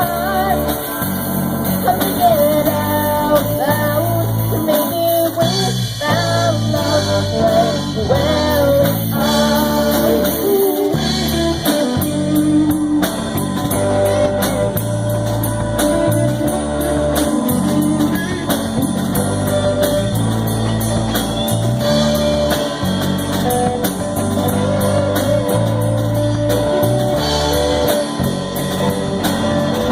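A live band playing a slow pop ballad on guitar, bass and drum kit, with a sung or played melody over it.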